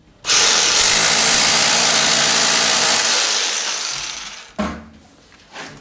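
Power drill with a masonry bit boring a fixing hole through plaster into brickwork. It starts abruptly, runs steadily for about three seconds, then tails off as it slows, with a short second burst near the end.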